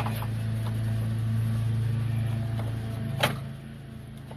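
Plastic cooling-fan shroud knocking against the radiator as it is pushed down into its mounting grooves: a light click at the start and one sharp knock about three seconds in. Under it runs a steady low motor hum.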